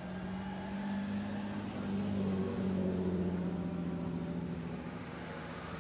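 A Nissan 350Z's V6 engine running at low revs as the car rolls slowly past. The steady low engine note swells toward the middle, then eases off as the car moves away.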